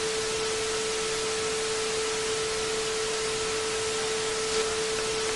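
A single steady tone over an even hiss of static.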